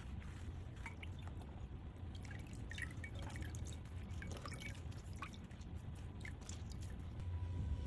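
Water dripping in scattered small drops at irregular intervals, faint, over a low steady hum.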